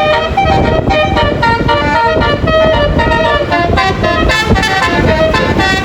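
A bus's basuri telolet horn, a multi-trumpet musical air horn, playing a melody as a run of held notes that change pitch every fraction of a second, over a steady low rumble.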